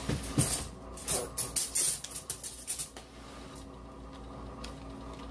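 Stick of butter in its paper wrapper being handled on a countertop: crinkling wrapper and a few light knocks over the first three seconds, then quiet.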